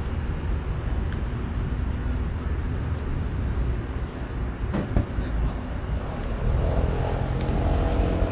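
Steady low outdoor rumble on the microphone, with one sharp knock about five seconds in and faint distant voices near the end.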